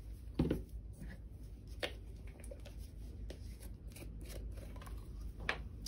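A few short clicks and knocks of small plastic paint pots and a dotting tool being handled and set down on a cutting mat, over a low steady hum.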